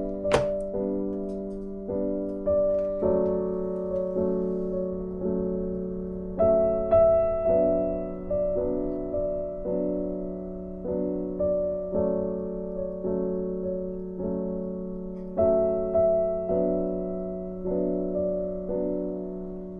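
Background piano music, notes and chords struck about once a second and left to ring, with one sharp click near the start.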